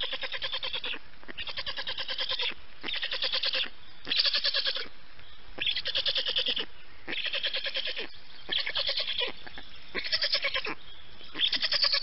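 Black stork chicks begging in the nest: a run of rapid, pulsing calls, each about half a second to a second long, repeated about ten times with short gaps between.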